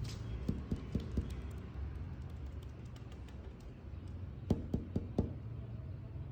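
Knocking on a hard surface: two quick runs of about four dull knocks each, the first about half a second in and the second about four and a half seconds in, over a steady low hum.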